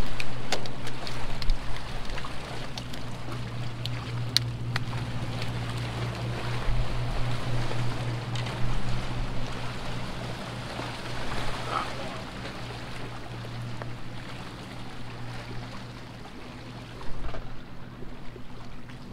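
A steady low engine drone, loudest for the first ten seconds or so and then fading, over waves washing against jetty rocks and wind on the microphone. A few sharp clicks come in the first few seconds.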